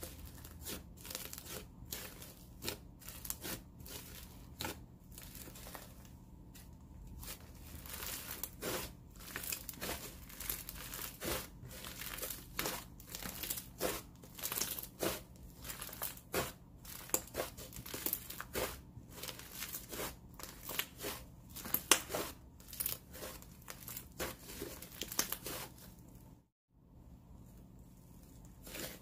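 Inflated clay-heavy slime being pressed, folded and stretched by hand, giving off a dense, irregular sizzle of small crackles and bubble pops. The audio drops out for a moment near the end.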